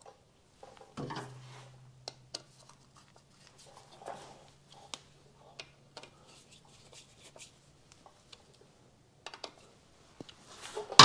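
Light clicks, taps and small scrapes of hands and tools working at a small two-stroke motorcycle engine's stator and ignition plate, loosening it to reset the ignition timing. A faint steady low hum runs from about a second in until about eight seconds in, and a louder burst of noise comes right at the end.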